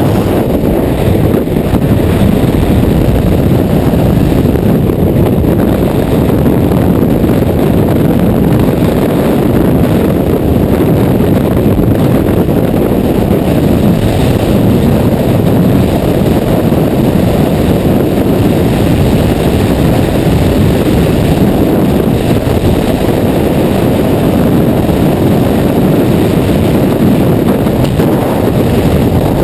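Freefall wind rushing across a camera's microphone: a loud, steady, low rush that does not let up.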